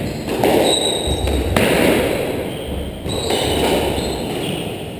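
Squash rally: the ball is struck by rackets and smacks off the court walls in a string of sharp hits, with short high squeaks of shoes on the wooden floor in between.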